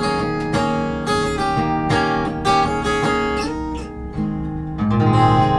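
Acoustic guitar playing the closing bars of a song: a run of picked notes, then a final strummed chord about five seconds in, left ringing.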